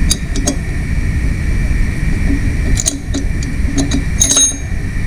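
Several short metallic clinks of hand tools being handled on the engine, over a steady low background hum.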